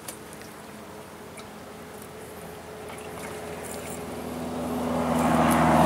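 A motor engine hums closer, growing steadily louder over the last couple of seconds.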